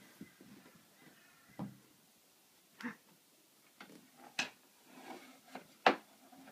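A toddler rummaging through a closet's shelves: scattered knocks and clatters as things are pushed about and picked up, with the sharpest knock near the end.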